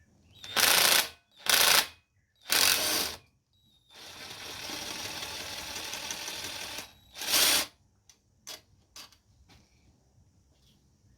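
Air ratchet loosening the handlebar clamp screws of a Yamaha TT-R110E: three short loud bursts, then a longer, steadier and quieter run as the screw spins out, then another short burst.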